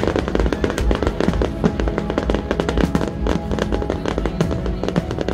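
Aerial fireworks bursting and crackling in quick succession, with music playing loudly at the same time.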